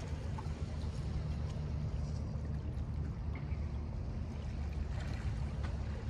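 Small waves lapping against shoreline rocks over a steady low rumble.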